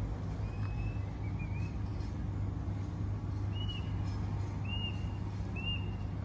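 A steady low mechanical hum, with a small bird giving short high chirps over it: two in the first two seconds, then three about a second apart.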